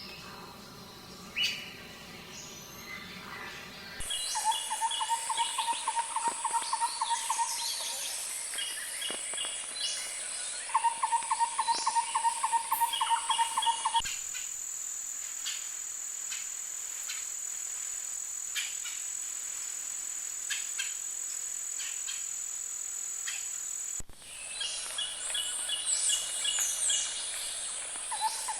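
Forest sounds from several short recordings cut together: birds chirping and calling over a steady high-pitched insect drone. In some stretches a fast trill repeats every few seconds.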